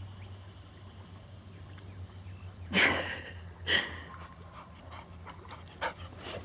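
A dog barking twice, about a second apart, over a low steady hum.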